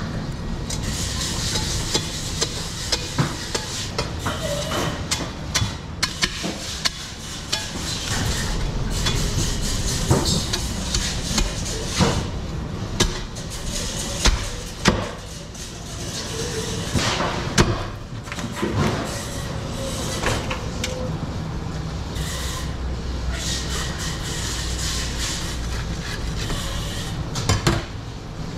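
Heavy fish knife chopping and knocking into a whole yellowfin tuna on a plastic cutting board: a series of irregular sharp knocks over a steady background noise.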